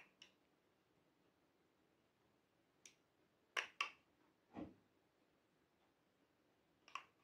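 A few short, sharp clicks and taps as a small plastic bottle of purple glue and its cap are handled over a glass baking dish. There is a pair of clicks at the start, a single one near three seconds, the loudest pair at about three and a half seconds, a duller, lower knock just after, and another pair near the end, with near silence in between.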